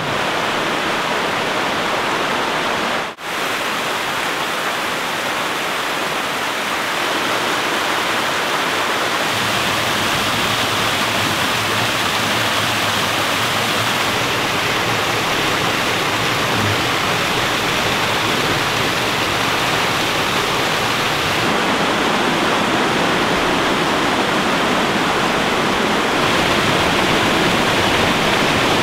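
Rushing water of a small mountain waterfall cascading over rocks: a steady, even rush. It drops out for an instant about three seconds in.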